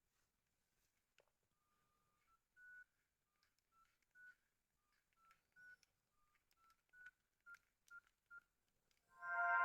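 Nokia N73's speaker giving a string of short electronic beeps at a few different pitches, about two a second, with faint clicks of its keys. About nine seconds in, a much louder, fuller electronic sound of several notes at once starts from the phone.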